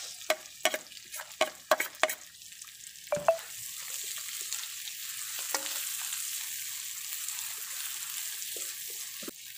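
A metal spoon knocks sharply about seven times as chopped onions are scraped off a plate into a wok, then onions and garlic sizzle steadily in hot oil as they are stirred, the frying starting about three and a half seconds in.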